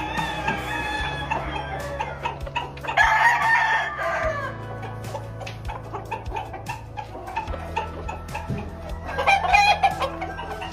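Gamefowl roosters crowing, once about three seconds in and again near the end, with chickens clucking in between.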